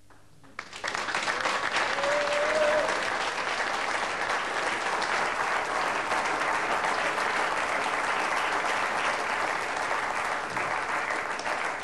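Studio audience applauding, starting about half a second in after a brief quiet and going on steadily before thinning out near the end.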